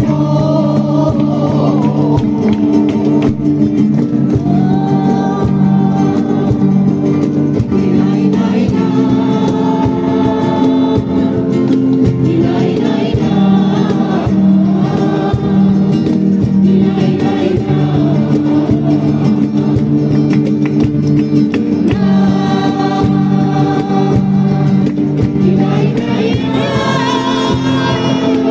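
A group of voices, mostly women, singing a song in chorus to two strummed nylon-string Spanish guitars, with steady rhythmic hand clapping.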